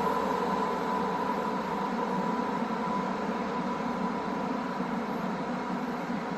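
Electric commuter train running along the platform, a steady rumble and rush of wheels on rail with a constant high whine, slowly getting quieter.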